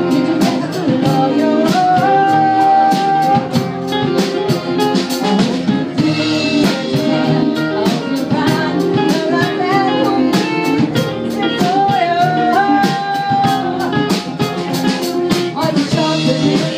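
Live band playing: a woman singing over an electric guitar and a drum kit keeping a steady beat. She holds a long note a couple of seconds in and again about twelve seconds in.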